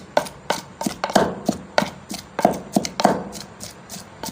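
Raw beef mince being kneaded and mixed with spices in a bowl: repeated wet slaps and squelches, two or three a second.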